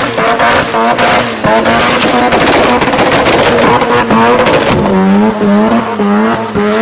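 Rotary (Wankel) engine race car revving hard and loud, its pitch wobbling rapidly up and down at high revs, with a dip and climb about five seconds in.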